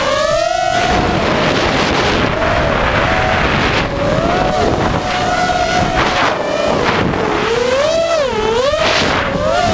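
ZMR250 racing quadcopter's Cobra 2204 1960 kV brushless motors and 5045 bullnose props whining, the pitch rising and falling with the throttle, heard from the camera on board with wind rushing over its microphone. The pitch rises sharply at the start and dips and climbs again about eight seconds in.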